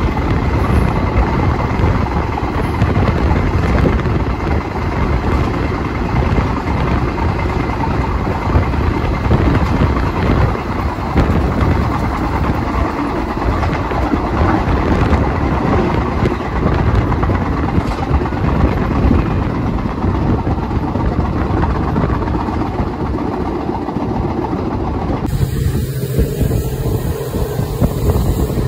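Train running on the rails: a loud, steady rumble and rattle. About 25 seconds in it cuts abruptly to a steadier hum with a low droning tone.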